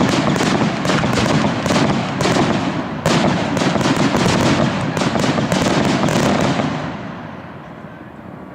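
Fireworks display: a dense run of bangs and crackling, with one sharp burst about three seconds in, dying away over the last two seconds.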